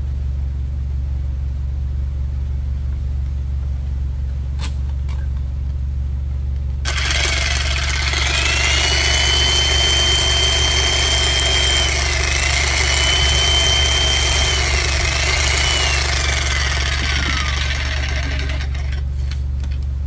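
Electric jackhammer's motor switched on after a no-power repair, running with a rough mechanical noise and a high whine that rises as it spins up, dips twice, then falls away as the motor winds down and stops: the tool now has power.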